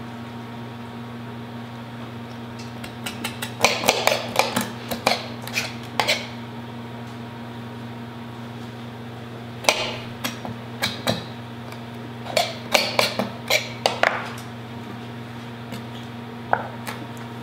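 Boning knife scraping meat off a chicken wing bone, with clusters of short sharp clicks where the blade knocks against the bone and the cutting board. A steady low hum runs underneath.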